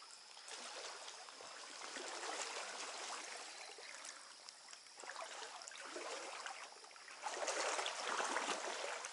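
Water of a small trout stream rushing and splashing, swelling and easing, louder for the last couple of seconds.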